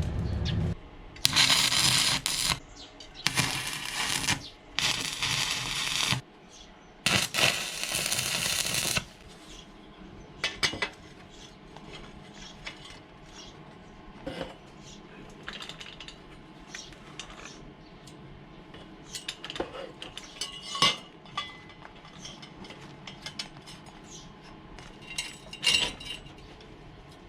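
Welds on a steel cart frame being ground and cleaned up in four short, harsh bursts of power-tool noise, then scattered light metallic clinks and taps as steel parts are handled.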